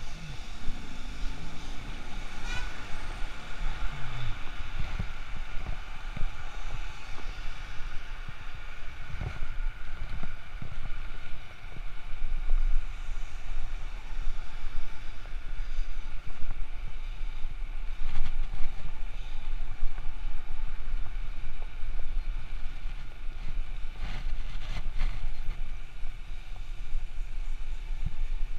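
Steady wind rumble on the microphone of a camera riding on a moving bicycle, with city road traffic beneath it.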